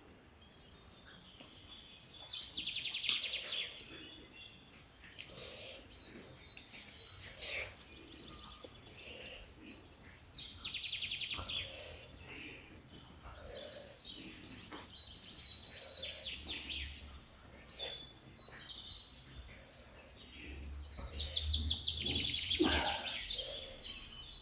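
Eating sounds with scattered short clicks, while a bird trills in the background three times.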